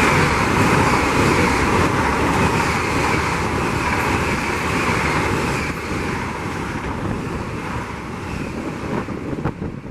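A steady rushing noise, like wind on the microphone, that slowly fades in the second half.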